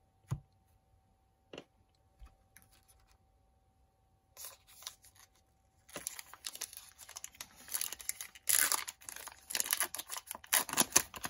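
A trading card pack's crimped wrapper being torn open by hand, crinkling and ripping. It starts about four seconds in and gets louder and busier toward the end.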